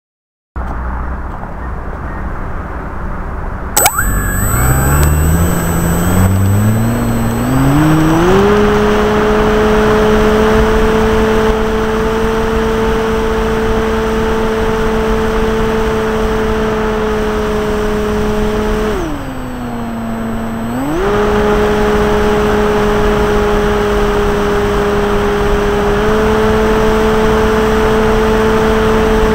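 Brushless outrunner electric motor and propeller of an Art Tech Cessna 182 RC model plane, heard from a camera on the plane. After a click about four seconds in, the motor whine climbs in pitch over a few seconds as it throttles up, then holds steady. It dips briefly about twenty seconds in as the throttle is eased, then comes back up.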